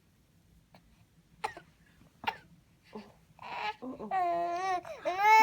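A baby coughs twice, then breaks into crying: long, high wails that rise and fall, loudest near the end.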